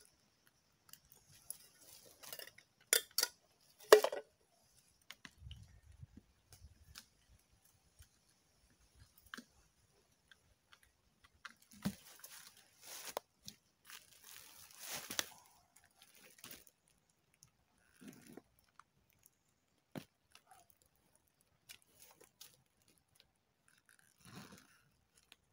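Handling noise from a rope-tied canvas blanket bundle being unwrapped: scattered clicks and knocks, with a few sharp knocks about three to four seconds in and stretches of rustling a little after midway.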